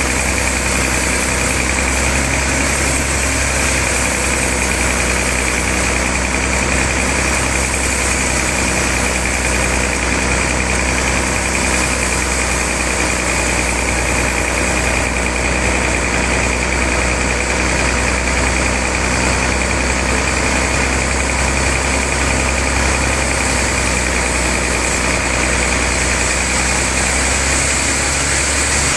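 Sawmill machinery running steadily, a low hum with a steady high whine over it.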